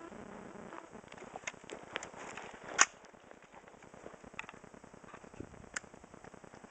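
Scattered sharp cracks and clicks, one much louder than the rest nearly three seconds in, with fainter ones about a second before it and near the end.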